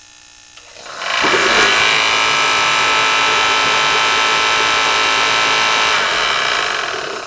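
Dyna-Glo Delux 50,000 BTU kerosene forced-air (salamander) heater starting up: its fan and air-pump motor spins up about a second in and runs loud and steady with the burner lit, then shuts off about six seconds in and the motor winds down in a falling whine.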